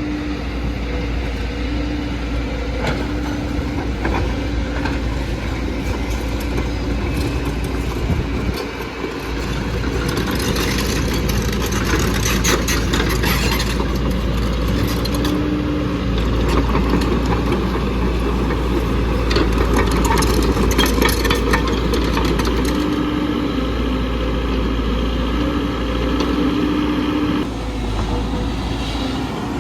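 JCB NXT 140 excavator working: its diesel engine runs steadily under load, with a hydraulic whine that comes and goes. Two spells of clattering and scraping, about a third of the way in and again around two thirds in.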